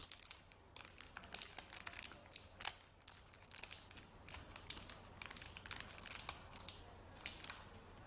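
Faint, irregular clicks, several a second, of the buttons on a small plastic infrared remote control being pressed.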